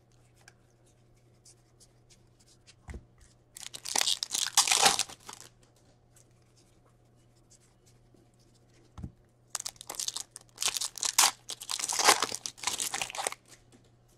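Hockey-card packs being torn open by hand, their wrappers crinkling. The tearing comes in two rustling spells a few seconds apart, with a couple of soft knocks between them.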